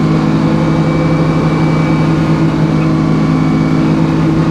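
Sawmill's engine running at a steady pitch, a constant low drone with no change in load.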